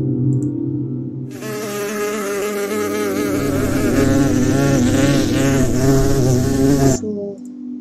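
Sound-effect recording of a bee buzzing in flight, its buzz wavering up and down in pitch, stopping abruptly about seven seconds in. A lower steady hum comes before it in the first second or so.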